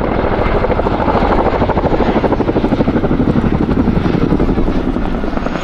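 RAF Chinook helicopter's tandem rotors beating with a rapid, pulsing thud (the 'wokka' blade slap), together with its engines, as it banks close overhead.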